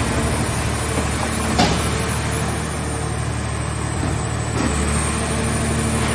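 Portable scrap car baler's hydraulic power unit running steadily with a low drone, with a single metallic clank about a second and a half in.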